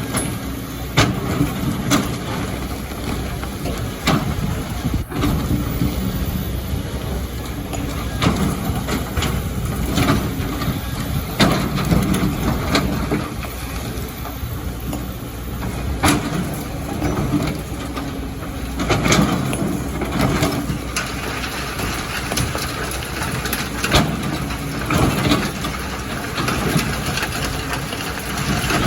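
Excavator's diesel engine running steadily, with repeated sharp knocks and clatter of rock and sand being dug and dropped.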